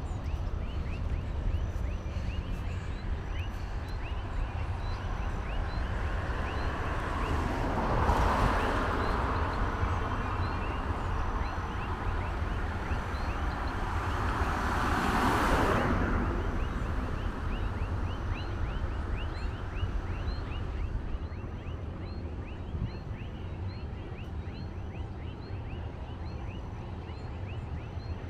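Two vehicles passing on the road, their noise swelling and fading away about eight and fifteen seconds in. Underneath, a steady low rumble and a continuous run of short, evenly repeated high chirps.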